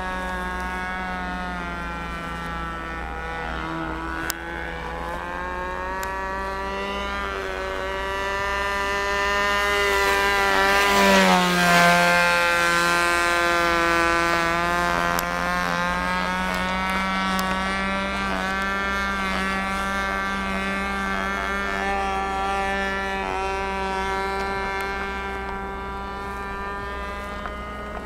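RC plane's .51 glow (nitro) engine running in flight, its pitch wavering as the plane manoeuvres. It grows loudest about eleven seconds in, dropping sharply in pitch as the plane passes close, then eases off. The mixture is not set right, which the owner puts down to the cold.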